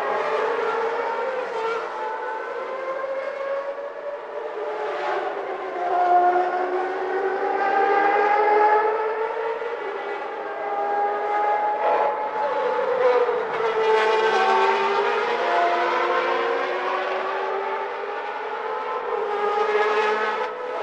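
Several 1991 Formula One cars' naturally aspirated 3.5-litre engines screaming at high revs, their pitch rising and falling with upshifts and downshifts as cars pass, several engines overlapping.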